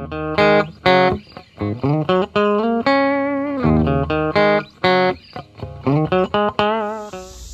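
Intro music: a guitar tune of plucked notes, several bending or sliding in pitch, fading out near the end.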